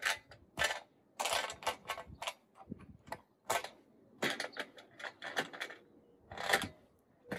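Irregular metal clicks and short scrapes of a bolt being slid along the channel of an aluminium IronRidge XR100 solar mounting rail and worked into a roof footing.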